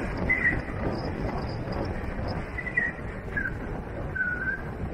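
Steady low rumble of a vehicle driving on a wet dirt road, with a bird giving short chirping calls several times over it.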